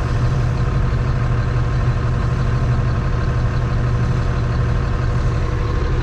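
Engine of a slow-moving farm vehicle running steadily on the road, a continuous low drone with no change in pace.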